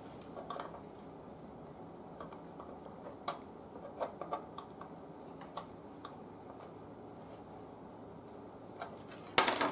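Small scattered clicks and taps of hand tools tightening down a connection on an old breadboard radio, then a louder brief clatter near the end.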